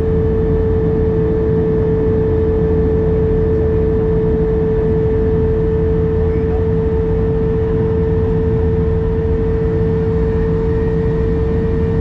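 Cabin noise of a jet airliner climbing after take-off: the turbofan engines and airflow make a steady loud rush with a low hum and a constant whine.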